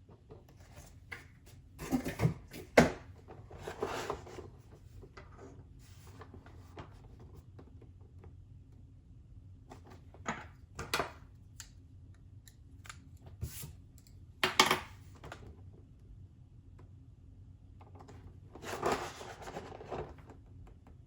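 Handling noises from boxed Funko Pop vinyl figures being picked up, turned and set down: scattered taps, knocks and short rustles, loudest about three seconds in and again near the middle, over a faint steady hum.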